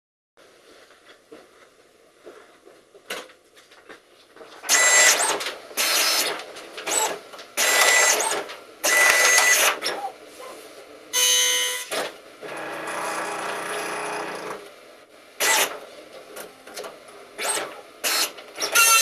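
PSI PP-404 high-speed dot matrix printer printing in loud rasping bursts, each about half a second to a second long, with short gaps between them. Near the middle there is a steadier, quieter run of about two seconds. The first few seconds hold only a low hiss before the printing starts.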